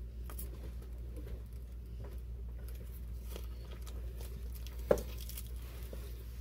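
Soft rustling and crinkling of a plastic piping bag of frosting being squeezed and twisted in the hands, over a low steady hum. About five seconds in there is one sharp knock as a paper drink cup is set down on the table.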